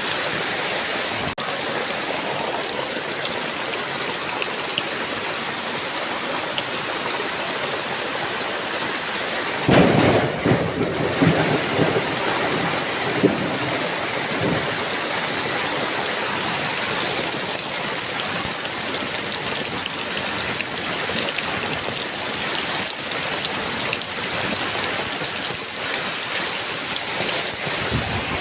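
Heavy rain falling steadily, with a thunderclap about ten seconds in that rolls on in a few rumbles for some five seconds.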